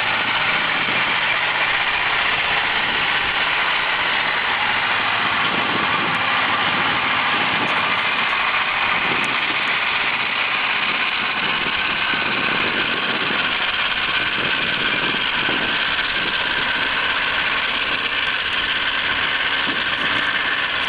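Sound-effect engine noise of an Sd.Kfz 251 half-track, running steadily at an even level with no revving.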